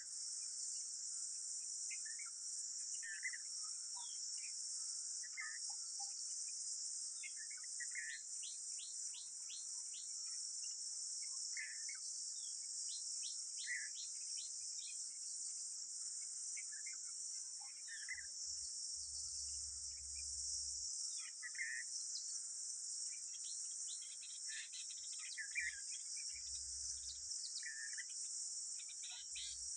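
Steady, high-pitched drone of insects such as crickets or cicadas, with short bird chirps scattered through it and several quick runs of falling chirps. A brief low rumble comes twice in the second half.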